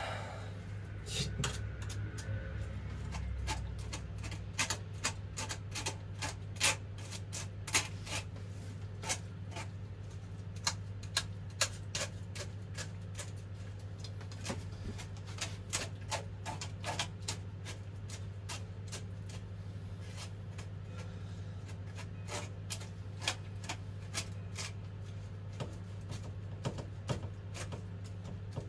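A hand utensil mashing boiled azuki beans in a stainless steel bowl: irregular clicks and taps of metal on the bowl with some rubbing and scraping, over a steady low hum. The beans are a little too firm, so the mashing is slow going.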